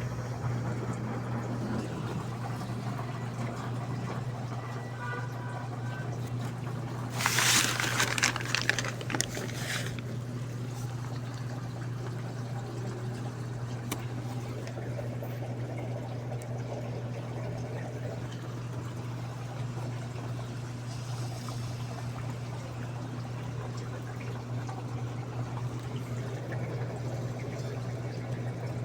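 Daewoo washing machine running, with water pouring and trickling into the drum over a steady low hum. About seven seconds in, a louder rush of noise lasts about three seconds.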